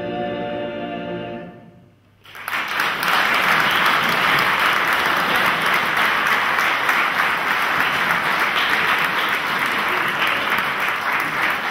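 A male choir holds a final sung chord that fades away about two seconds in, followed straight away by audience applause that starts suddenly and goes on steadily.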